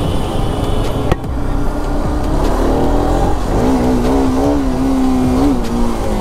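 Bajaj Pulsar RS200 motorcycle on the move: a steady rumble of engine and wind noise, with a pitched note that comes in about halfway through and wavers slightly before fading near the end.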